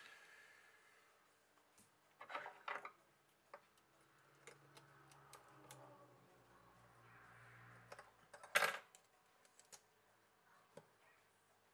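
Light clicks and taps of tweezers and the parts of an opened Huawei Y5 II smartphone being handled on a desk, with a small cluster of clatters about two seconds in and the loudest clatter about eight and a half seconds in.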